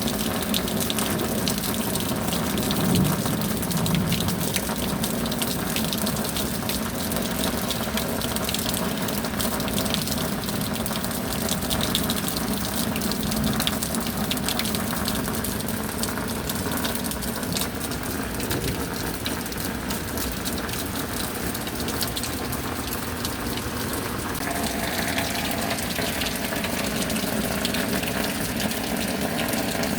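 Heavy rain with rushing, gushing water, a steady dense hiss that holds at one level throughout. A faint steady hum sits underneath and shifts in pitch about 25 seconds in.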